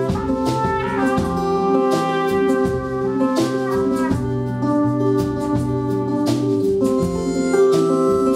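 Live band playing an instrumental break between sung verses of a country song, several pitched instruments over a steady drum beat.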